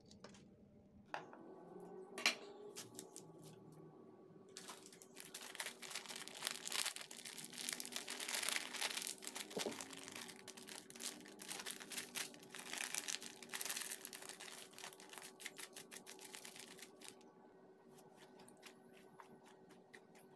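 Fresh broccoli florets being handled in a plastic basin: dense crackly snapping and rustling through the middle, thinning to scattered clicks near the end, over a faint steady hum.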